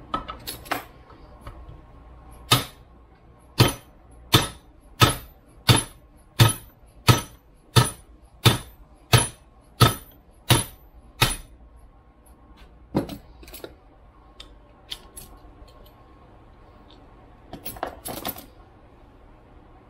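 Hammer blows on a steel double cardan driveshaft yoke clamped in a bench vise, knocking a universal joint apart. There are about a dozen sharp metallic strikes, roughly one every 0.7 s, then a few lighter taps and clinks near the end.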